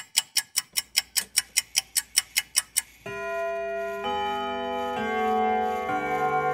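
Rapid clock ticking, about five ticks a second, which stops about three seconds in as music with slow, held chords begins.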